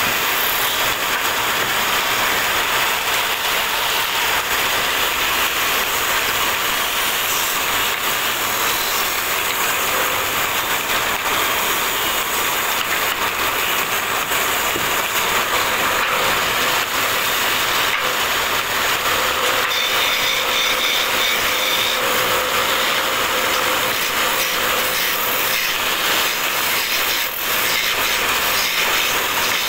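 A hand-held chisel cutting wood on a spinning belt-driven lathe while turning a wooden rolling pin: a steady, continuous scraping of the tool peeling shavings off the wood.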